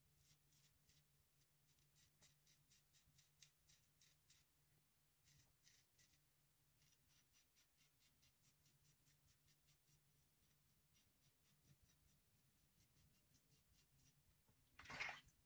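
Rockwell 6C safety razor with a Personna Super Blue blade scraping through lather and a week's stubble in short, quick strokes: a faint rasp about three times a second, with a few brief pauses. A brief louder rush near the end.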